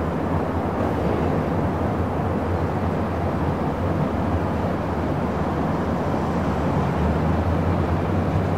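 Dense city traffic ambience: a steady, even rumble of many vehicles, heavy in the low end, with no single car or brake squeal standing out.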